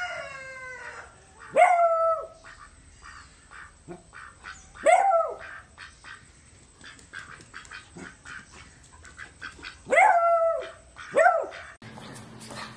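Beagle barking in loud, drawn-out bays that rise and fall in pitch: one trailing off at the start, then four more, spaced irregularly, the last two close together. Faint short ticks sound between the bays.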